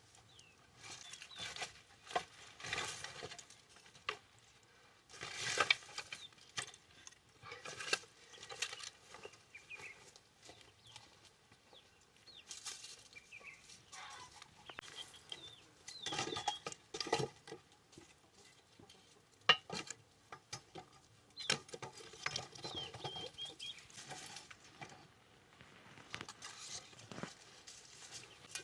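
Chickens clucking now and then among irregular rustling and knocking sounds.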